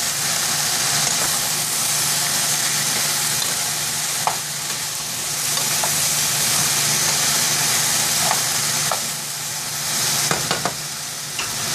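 Diced vegetables sizzling in hot oil in a stainless steel saucepan as they are stir-fried with a wooden spoon, with a few light knocks of the spoon against the pot.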